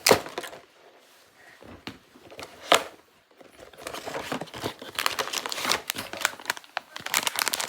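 Crinkly blind-box packaging being handled and crumpled, with two sharp snaps in the first three seconds, then a run of dense crackling that grows busier toward the end.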